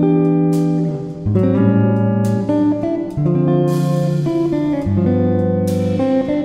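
Background music led by strummed guitar chords, the chord changing about once a second.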